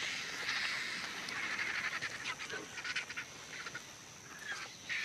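Harsh, rapid squawking and chattering animal calls, many short cries in quick succession.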